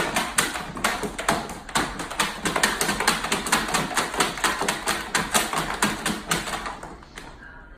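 Dog digging at the bottom of a plastic storage bin: rapid scratching of its claws on the hard plastic, several strokes a second, fading out near the end.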